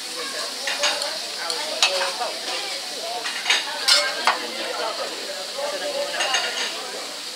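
Chicken sizzling on a hot teppanyaki griddle, a steady hiss, with sharp metal clinks of a spatula against the steel plate, the loudest about 2 and 4 seconds in.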